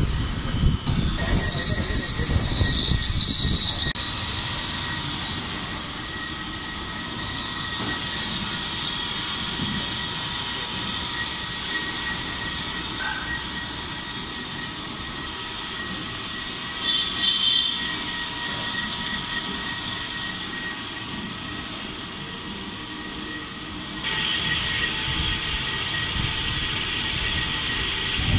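Daljit HB 200 A automatic horizontal metal-cutting bandsaw running as its blade cuts steel bar stock. There is a steady machine whine under a high metallic squeal. The squeal is loudest for a few seconds near the start, then gets louder again about four seconds before the end.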